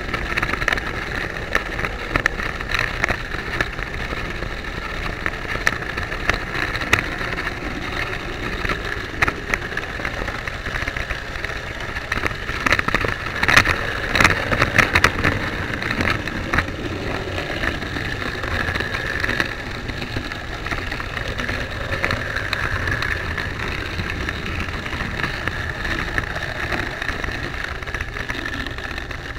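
OO gauge model train running along its track, heard from a camera riding on the train: a steady motor whine with a rapid patter of wheel and rail clicks. The clicking gets denser and louder about halfway through, as the train crosses pointwork.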